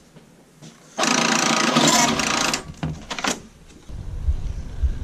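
Electronic time clock printing a time card: a buzzing mechanical print run of about a second and a half, then a couple of clicks. From about four seconds in, a low rumble of wind on the microphone.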